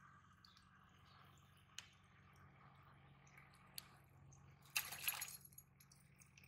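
Mostly near silence, then about five seconds in a brief splash and spatter of water as a small hooked fish is jerked out of the pond on a rod and line. Two faint clicks come before it.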